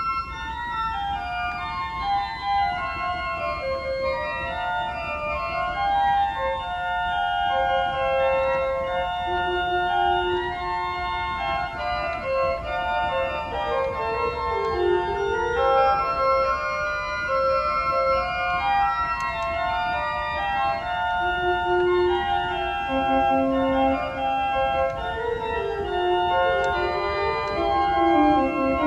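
Organ music: sustained chords with a melody line that steps down in pitch in places.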